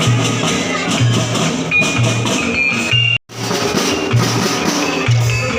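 Music with a steady drum beat, a low thud about once a second under busier percussion. It cuts out for an instant just after three seconds, then carries on.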